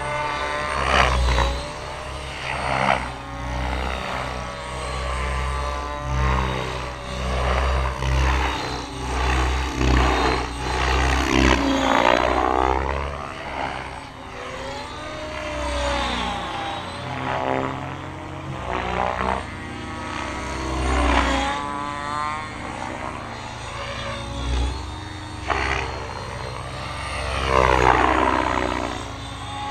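Blade 700 X electric radio-controlled helicopter flying 3D aerobatics, its rotor and motor sound sweeping up and down in pitch over and over as it flips and changes direction.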